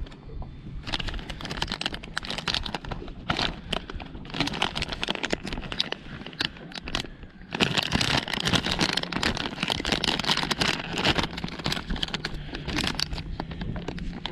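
Close crinkling and clicking of plastic being handled, as of lures being sorted in a packet or tackle box. It grows louder about halfway through, over a faint steady low hum.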